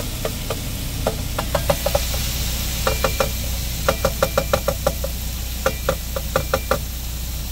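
Meat chopper knocking and scraping against an electric skillet while ground pork is broken up, in quick runs of short knocks with a slight ring, several a second. A steady low hum of the truck's idling engine runs underneath.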